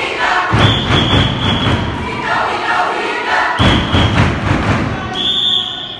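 A group of voices chanting together in a Filipino choral recitation (sabayang pagbigkas), over heavy low thumps, ending on a long high held note about five seconds in.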